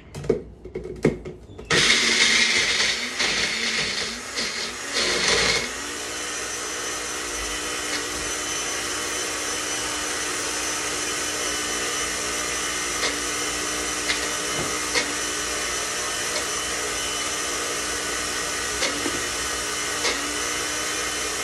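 Single-serve countertop blender: a few clicks as the cup is seated on the base, then the motor starts and chops coarse chunks of coconut, avocado and garlic with water, the sound uneven for about four seconds. It then settles into a steady hum as the mix turns smooth.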